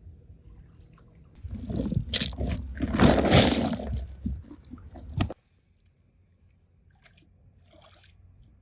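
Water sloshing and splashing for about four seconds, loudest around the middle, then cutting off suddenly.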